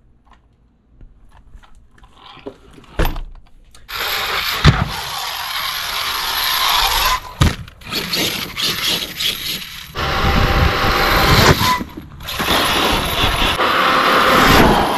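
Arrma Kraton 8S RC truck with an 800 kV brushless motor being driven hard. After a few faint clicks it bursts into a loud run of motor whine and tyre noise, with short let-offs and a few sharp knocks.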